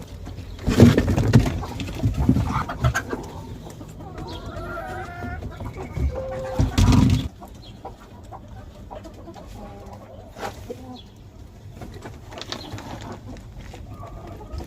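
Laying hens clucking and calling in a poultry house, over a steady low hum, with a few loud bursts of noise about a second in and again near the middle.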